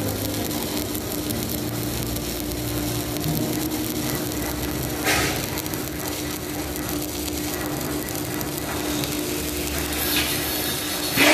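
Stick (shielded metal arc) welding with a 7018 electrode, laying the cap pass on carbon-steel pipe: a steady crackling hiss from the arc over a steady low hum. There is a brief louder flare about five seconds in and another right at the end.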